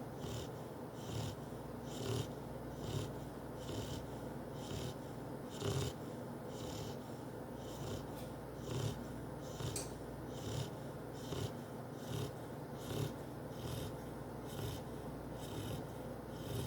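A sleeping pet snoring in a steady rhythm, a hissy snore a little less than once a second.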